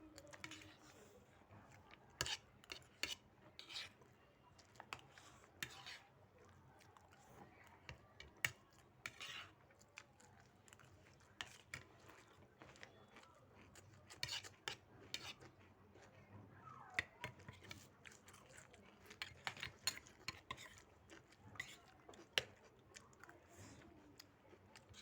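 Quiet eating sounds: irregular light clinks and scrapes on plates, many short ones spread throughout, with chewing.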